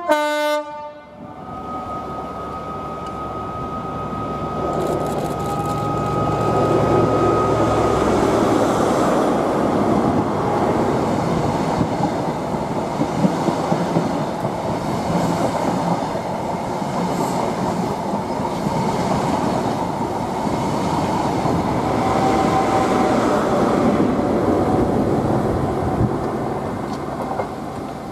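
Passenger train sounding a short horn blast that drops in pitch, then passing the platform: a steady whine as it approaches, building to a loud rumble and rattle of wheels on the rails for about twenty seconds, fading near the end.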